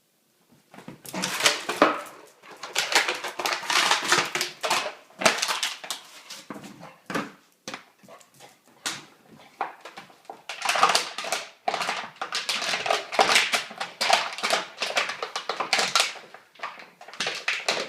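Vizsla puppy at play, making rapid clattering and scraping noises in bursts with short pauses between them.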